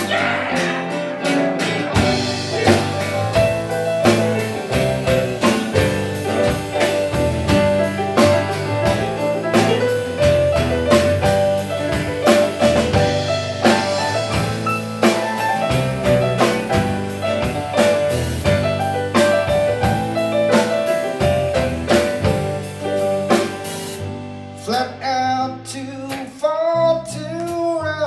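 Live rock band playing with a drum kit, electric and acoustic guitars, bass guitar and a Nord Electro keyboard. About 24 seconds in the drums drop out and the music thins, leaving a man singing over lighter backing.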